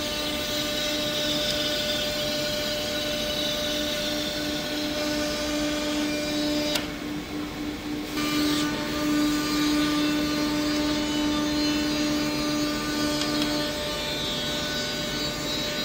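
Automatic CNC wood-cutting machine running, its spindle whining steadily while a thin cutter cuts a curved outline through a thick wooden board. The noise briefly drops away about seven seconds in.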